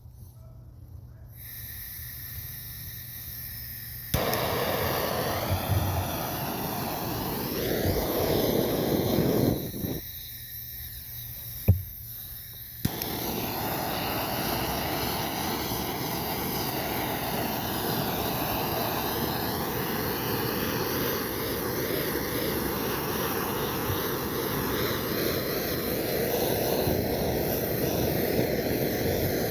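Blowtorch flame running with a steady rushing hiss as it scorches a wooden hatchet handle. It cuts out for a few seconds near the middle, with one sharp click in the gap, then runs on.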